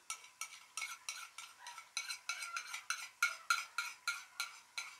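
Wooden spoon stirring minced meat being fried in an open metal pressure cooker, scraping the pot at about three to four strokes a second. This is the frying (bhunai) stage, with yogurt just mixed in.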